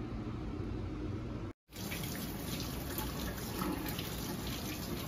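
Kitchen tap running water into the sink while something is rinsed under the stream, starting right after a sudden cut about a second and a half in. Before the cut there is a low, steady hum.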